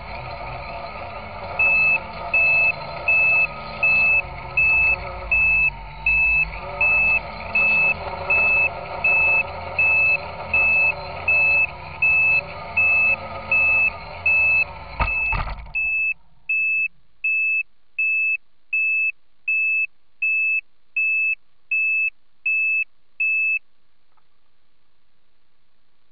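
Quadcopter's brushless motors whining with a rough, layered hum, a noise the owner blames on bad bearings in the cheap motors out of the box; it touches down with a knock about halfway through and the motors stop a moment later. Through it, the craft's onboard buzzer beeps loudly and evenly, a little more than once a second, going on after the motors stop and ending near the end.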